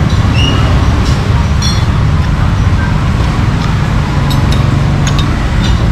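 Steady low background rumble of the kind road traffic makes, with a few light clinks and clicks of tableware near the end.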